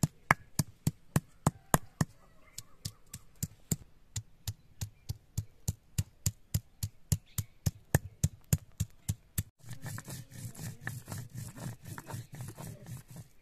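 Stone pestle (batta) pounding onion, garlic and chillies on a wet flat grinding stone (sil), sharp knocks about three to four a second. About two-thirds of the way in, the knocks give way to a continuous scraping as the pestle is rubbed back and forth, grinding the ingredients into a paste.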